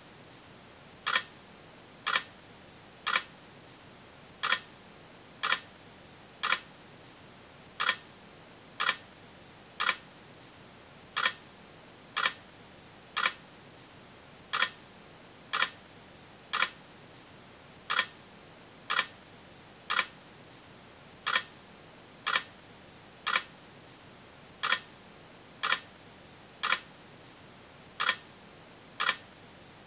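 Sharp, identical clicks, about one a second at a slightly uneven pace.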